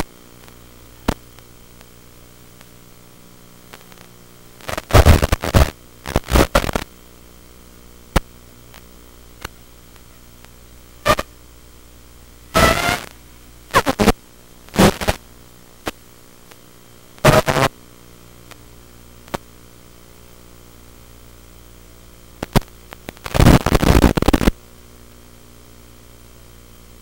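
Audio channel of an analog FPV video link: a steady hiss with a low hum, broken by several short, loud bursts of static as the radio signal breaks up during the flight.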